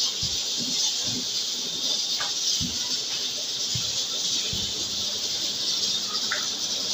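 Rolling pin working roti dough on a board: a few irregular soft thuds and knocks, over a steady high hiss.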